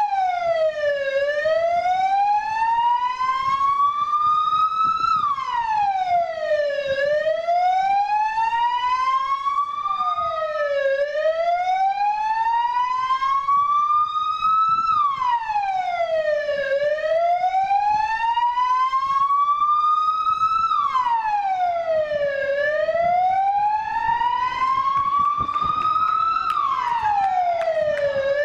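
Electronic vehicle siren on a slow wail: its pitch climbs for about four seconds, then drops over about two, again and again, about five times.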